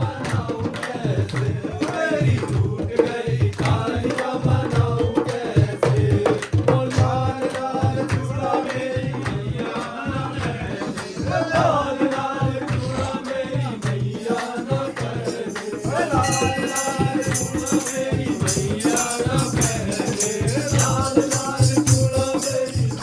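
Group of voices singing a Hindu devotional bhajan (kirtan) to a steady drum beat and rattling percussion. A bright metallic jingling joins about two-thirds of the way through.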